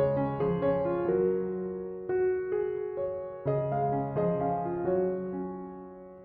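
Gentle piano music: soft chords and single notes struck and left to fade, with a low bass note under each chord.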